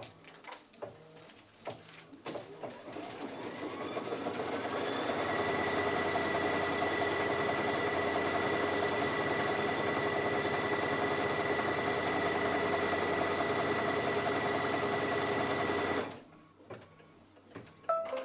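Brother Luminaire embroidery machine running after a few clicks: its motor sound rises in pitch over a few seconds, settles into a steady whir, then stops abruptly about sixteen seconds in, followed by a few more clicks.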